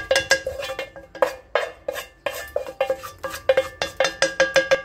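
A utensil clinking repeatedly against a dish in a quick, irregular run of strikes, about five a second. Each strike rings briefly at the same few pitches.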